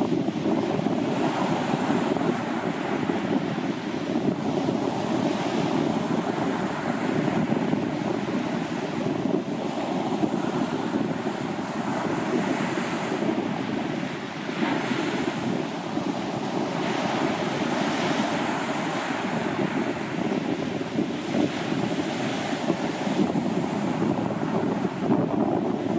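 Sea surf on a sandy beach: waves break and their foam washes up the shore, a fresh hissing swell every few seconds over a continuous rushing sound. Wind buffets the microphone throughout.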